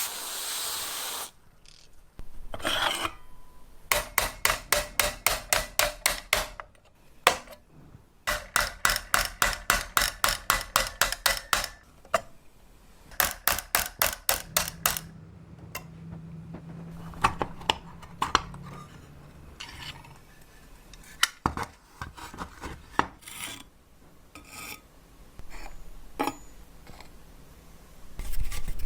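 Hand rubbing or filing strokes, rapid and back-and-forth at about four strokes a second, in runs of a few seconds with short pauses, then slower scattered scrapes and a few knocks.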